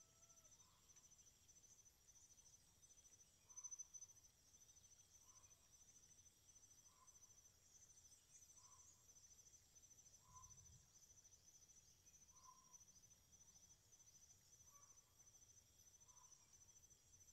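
Near silence with faint, steady high-pitched insect chirring, typical of crickets. A faint short call repeats about every one and a half seconds.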